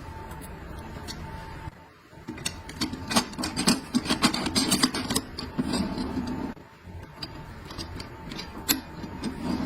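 Parts being handled during transmission assembly: a busy run of sharp clicks and rubbing in the middle, quieter clicking before and after, over a faint steady hum.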